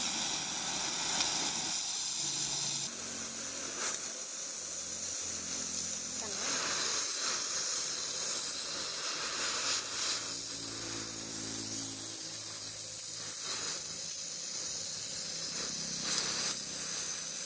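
Oxy-fuel cutting torch hissing steadily as its flame heats and cuts into the thick steel plate of a truck axle housing, throwing sparks.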